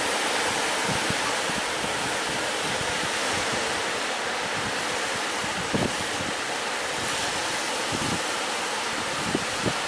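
Steady rushing of sea waves and wind, with the wind buffeting the microphone in a few short low thumps in the second half.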